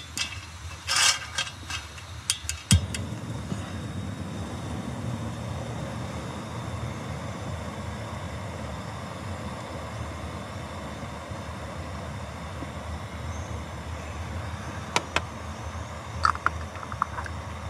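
Gas canister camping stove: a few sharp clicks, then about three seconds in the burner catches and burns with a steady hiss. A few light clinks near the end.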